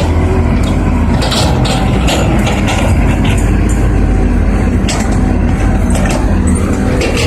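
Heavy diesel machinery at an excavation site running steadily with a deep low rumble, with scattered short clanks and knocks throughout.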